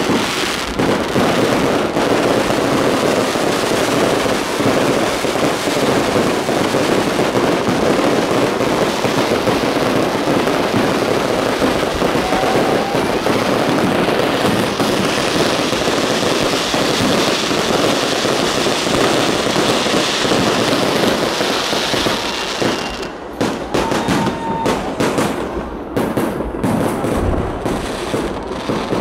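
Fireworks display: a dense, continuous barrage of bursts and crackling that thins, after about twenty-three seconds, into separate sharp bangs.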